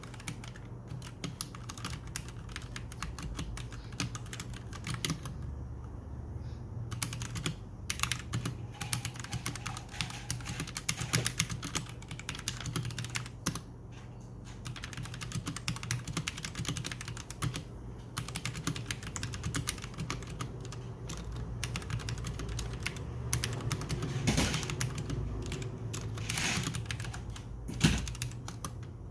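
Royal Kludge RK G68 mechanical keyboard with red switches being typed on steadily, a fast irregular run of key clacks with brief pauses and one louder key strike near the end. A steady low hum runs underneath.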